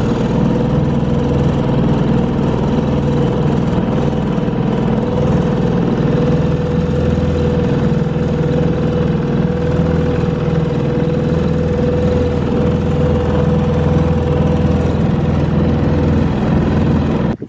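Outboard motor running at a steady speed, driving an aluminum jon boat across a lake, with a constant hum and a steady whine.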